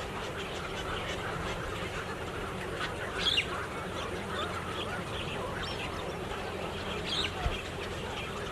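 A large flock of birds calling continuously in a dense chatter, with two louder, falling calls, one about three seconds in and one near the end.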